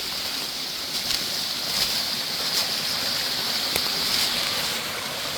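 A small mountain stream rushing steadily over rocks, an even hiss of running water, with a few faint taps.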